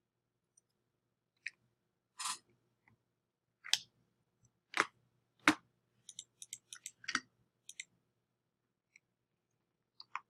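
Computer mouse clicks, scattered single clicks and then a quick run of small clicks, as a PDF viewer's zoom buttons are clicked.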